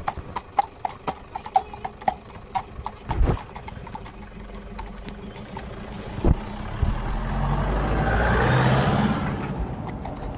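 Horses' hooves clip-clopping on a tarmac lane at about three steps a second, fading out over the first three seconds. Then a pickup truck passes close by, its engine and tyres swelling to a peak about eight seconds in and dying away.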